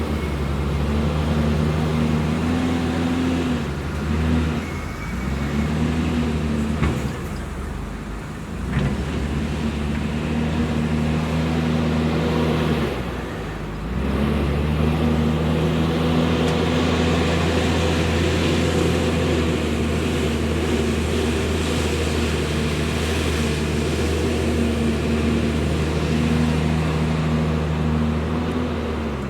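Heavy construction machine's diesel engine running hard under load, its note steady apart from brief drops in revs about 4, 8 and 13 seconds in.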